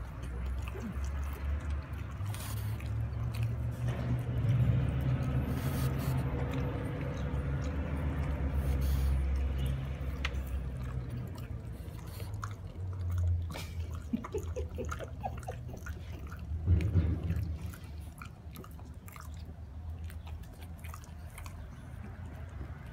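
French bulldog chewing a piece of cooked sweet potato, with wet smacking and clicking mouth sounds throughout, over a low rumble that is heaviest in the first half.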